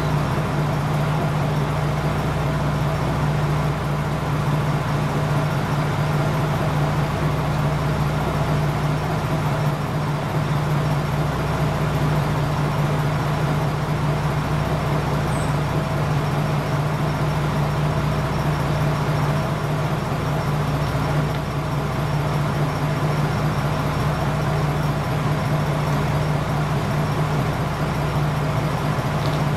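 JR Kyushu KiHa 47 diesel railcar's engine idling steadily with an even, low hum.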